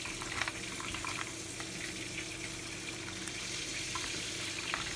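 Steady sizzling of food frying in a pan, with a few faint clicks.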